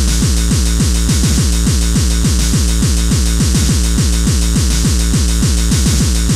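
Hardcore techno: a fast run of deep kick drums, several a second, each dropping in pitch, over a steady hiss of cymbals.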